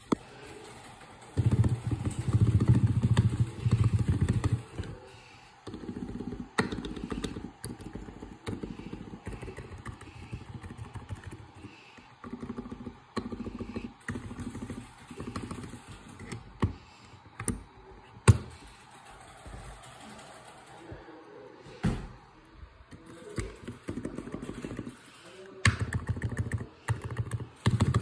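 Keys of a lubed Razer Huntsman Mini keyboard typed and mashed fast, a dense clatter of key strikes. In the loudest runs, about a second in and again near the end, it blurs into a low rumble. Between them come quieter, sparser key presses with a few sharp single clacks.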